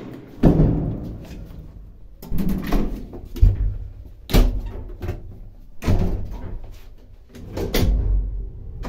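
A series of knocks and clunks from the car of an old ZUD elevator, the sharpest about four seconds in, with a low hum coming and going between them.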